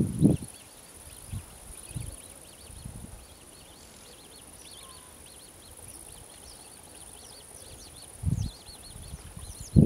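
Riverside marsh ambience: a steady high insect hiss with many short, high chirps repeating throughout. A few low thumps break in, with a larger one a little past eight seconds and the loudest right at the end.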